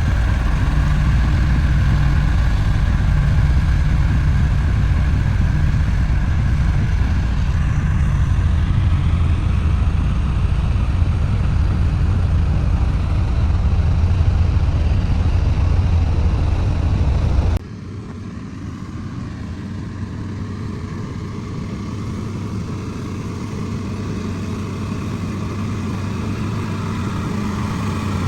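Heavy diesel construction machinery running with a steady, deep engine rumble. About two-thirds of the way through it cuts off abruptly to a quieter, lighter engine sound that gradually grows louder.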